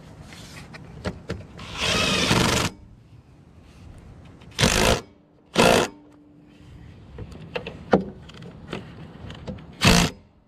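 Ratchet wrench clicking in four short bursts, the first and longest about two seconds in, with light clicks and knocks of hand tools between, while a replacement starter motor is bolted onto a small Briggs & Stratton engine.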